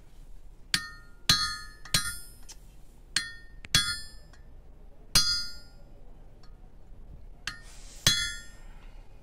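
Hammer blows on a small steel fitting, about eight sharp strikes at uneven intervals, each with a brief metallic ring.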